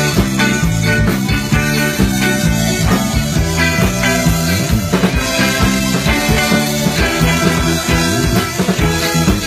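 Live band playing amplified rock music through the PA, with electric guitar and keyboard, in an instrumental passage without singing.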